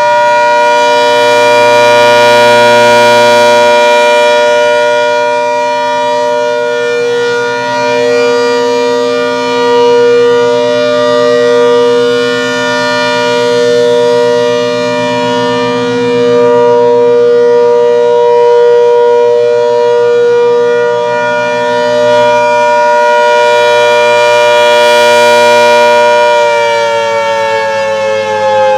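ACA Hurricane 130 MKII outdoor warning siren sounding its steady Alert tone, loud, with the volume swelling and fading every few seconds. Near the end its pitch starts to slide down.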